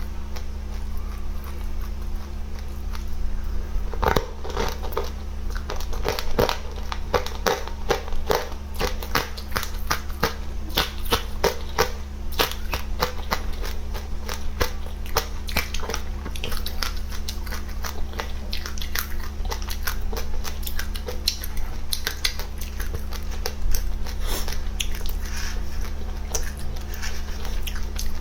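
A person chewing and crunching seeds, a dense run of irregular crackling crunches that starts about four seconds in, over a steady low hum.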